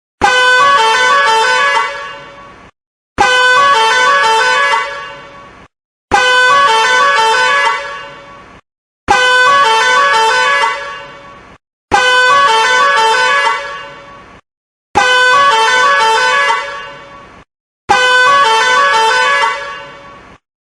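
Indonesian 'telolet' multi-tone bus air horn playing a short tune of stepping notes, the same blast repeated seven times about every three seconds. Each blast holds for about two seconds, fades, and stops dead before the next.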